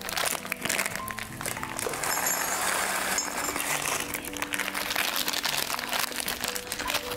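Background music over the crinkling of a plastic snack bag, which swells into a dense rustle for a couple of seconds about two seconds in as snacks are poured from it into a ceramic bowl, with scattered crisp crackles throughout.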